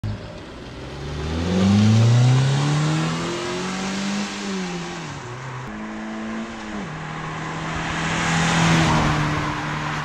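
Fiat Punto 1.4 naturally aspirated four-cylinder petrol engine revving up under acceleration, with the revs falling and rising again at shifts, then holding steady. A hiss swells near the end.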